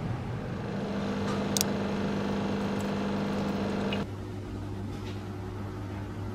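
Steady mechanical hum with two held tones, with a brief click about one and a half seconds in. About four seconds in it changes to a quieter, lower hum.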